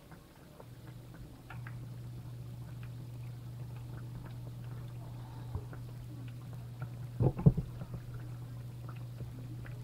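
Palm oil poured slowly into a frying pan, faint, over a steady low hum that comes in about a second in; a couple of soft knocks about three-quarters of the way through.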